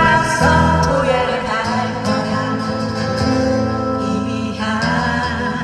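Trot song music playing, with a steady bass line and guitar under a melodic line.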